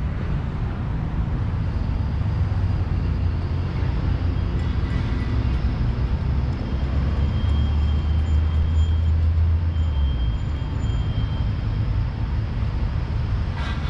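Street traffic: a steady low rumble of cars on a city avenue, swelling for a few seconds in the middle. A short click near the end.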